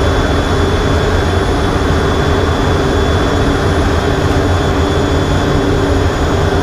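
Twin General Electric F414 turbofans of an F/A-18E/F Super Hornet running steadily, heard from the cockpit: a loud, even jet rumble with a constant high whine over it.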